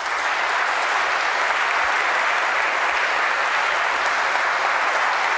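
Audience applauding steadily after a speech ends.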